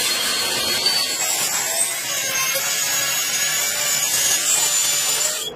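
Electric angle grinder grinding down weld on a metal engine bell housing, then a die grinder with a small mounted stone working the same weld. A continuous grinding noise whose whine rises higher in pitch about a second and a half in.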